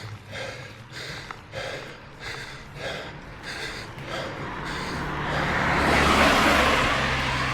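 A cyclist's heavy, rhythmic panting from climbing a steep hill, then a motor vehicle approaching and passing, loudest about six seconds in.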